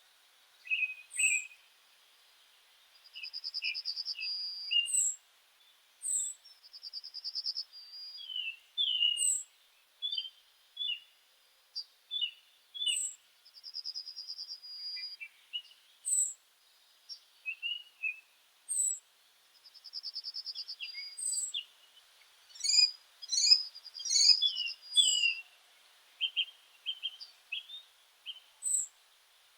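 Several songbirds singing together. One bird repeats a rapid trill lasting about a second and a half, four times over, among many short chirps and thin high notes from the others.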